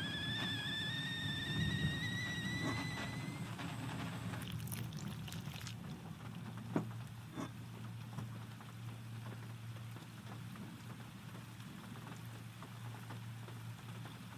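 Steady rain with a wood fire crackling, a few sharp pops standing out about seven seconds in, over a low rumble. A long, slowly rising whistling tone sounds over the first few seconds and then stops.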